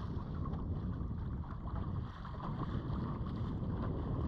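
Steady wind noise on the microphone, with small waves lapping.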